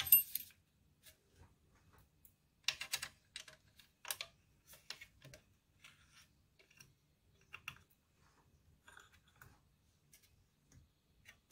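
Sparse light clicks and taps of small metal parts being handled while an aluminium cover is fitted over a lathe DRO scale: a sharp click at the start, a cluster of taps about three seconds in, then scattered faint ticks.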